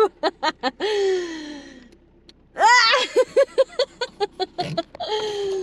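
Excited wordless vocalising on arrival: a few short yelps, a long cry falling in pitch, then a quick run of laughing "ha-ha" syllables and another falling cry.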